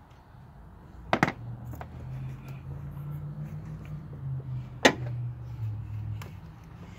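Sharp clicks of plastic wiring connectors being worked on the ignition coils. There are two loud clicks, about a second in and just before five seconds, with fainter ones between them, over a low steady hum.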